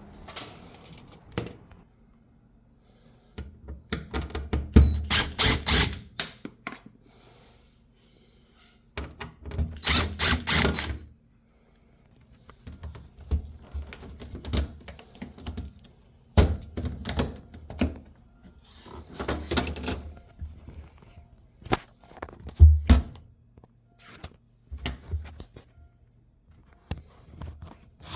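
Irregular bursts of clicking and rattling with low thunks at an LG front-load washing machine, several clusters of a second or two each with short pauses between.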